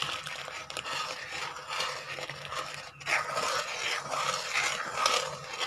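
Steel spoon scraping and stirring through milk against the bottom of a metal kadhai, in repeated strokes, as a cornflour mixture is stirred into the milk to thicken rabdi.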